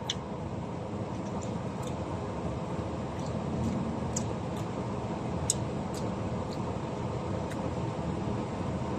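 Steady low rumble inside a minivan cabin, with faint scattered clicks and smacks from someone eating takoyaki; the sharpest click comes about five and a half seconds in.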